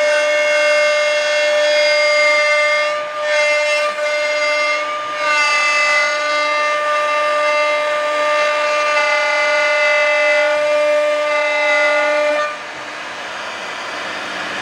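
CNC router spindle running with a steady high whine as its bit cuts through plywood, the pitch dipping briefly and recovering twice, about three and five seconds in. About twelve seconds in the whine cuts off, leaving a quieter hiss that slowly grows louder.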